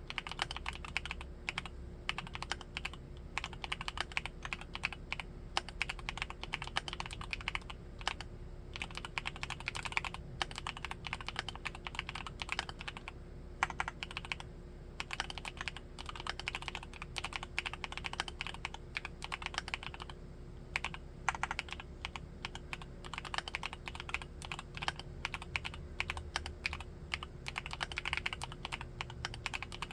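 Typing on a Createkeebs Luminkey75 mechanical keyboard with Gateron Baby Raccoon linear switches: a fast, continuous run of keystrokes, with short pauses about 8, 13 and 20 seconds in.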